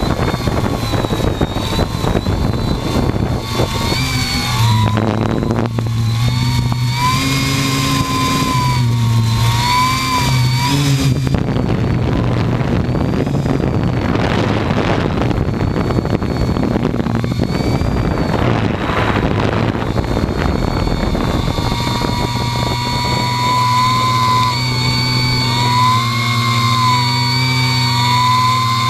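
Hexacopter's electric motors and propellers whining, heard from on the airframe itself. The whine rises and falls in pitch as the throttle changes. For several seconds in the middle a rushing, gusty noise swamps the whine.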